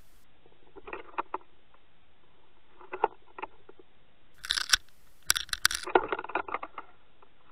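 Clicking and crackling picked up through the housing of an underwater camera towed on a trolling line, in clusters about one and three seconds in and a denser run from about four and a half to seven seconds in, over a faint steady hiss.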